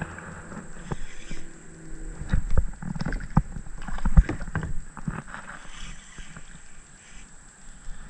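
Irregular knocks and splashes as a small sunfish is reeled in on a spinning rod beside a plastic kayak. The knocks come thickest in the middle, with the loudest about four seconds in.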